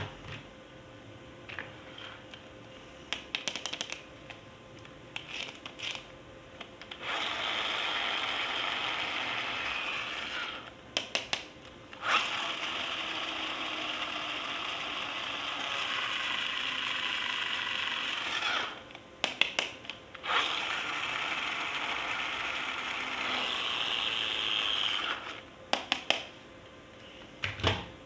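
A battery-powered toy's small motor and plastic gears whirring in three runs of several seconds each, with plastic clicks and handling noises before, between and after the runs.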